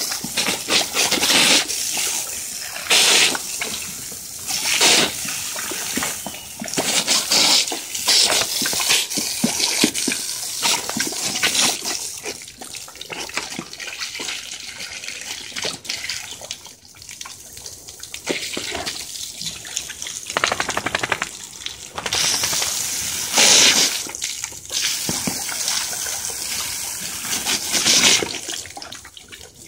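Garden hose spray hissing and splashing on a concrete patio and on dogs' muzzles as they snap at the stream, with louder splashing bursts every few seconds.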